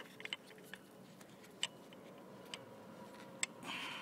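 Scattered light clicks and taps of metal parts being handled as new brake pads are worked into a motorcycle brake caliper, with a short rustle near the end.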